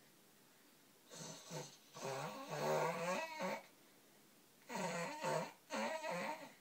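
Baby growling: two rough vocal bouts, the first starting about a second in and lasting over two seconds, the second shorter, near the end.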